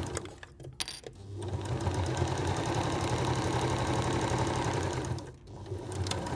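Domestic electric sewing machine stitching a seam through layers of cotton and oil cloth. It starts and stops briefly near the start, runs steadily for about four seconds, stops, and runs again in a short burst near the end.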